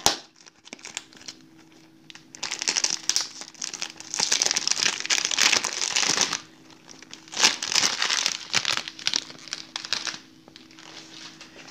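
Clear cellophane wrap being peeled off a perfume box, crinkling in several bouts. There is a sharp click right at the start, and the crinkling is loudest about halfway through before dying down near the end.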